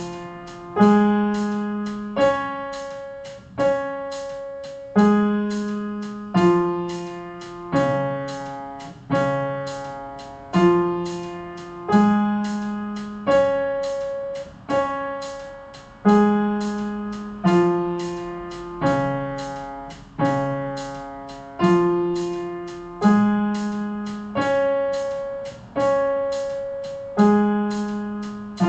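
Piano playing the D flat major arpeggio (D flat, F, A flat, D flat) up and down, one note about every second and a half, each ringing and fading before the next.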